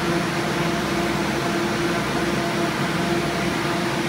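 Alternator test stand running steadily: its electric drive motor spinning a belt-driven GM 50 amp one-wire alternator, a constant hum and whine over a hiss of fan noise. The alternator is charging at about 14.4 volts under almost no load.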